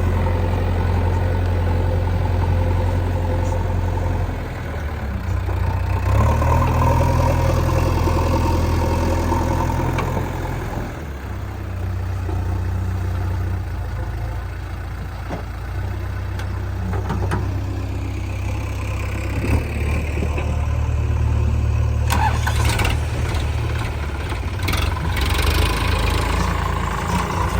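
Diesel engines of a JCB 3DX backhoe loader and a tractor running, the engine note rising and falling with load. Several sharp knocks come in the last few seconds.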